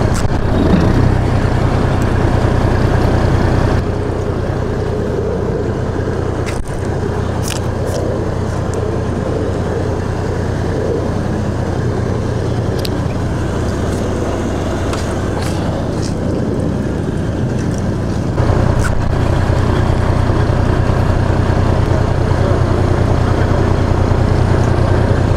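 Boat engine running with a steady low drone, stepping up in level about three quarters of the way through.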